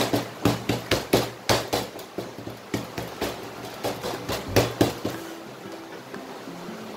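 Hands patting and pressing a sheet of pie-crust dough on a stainless-steel table: a string of dull slaps and knocks, about two or three a second, that stops about five seconds in.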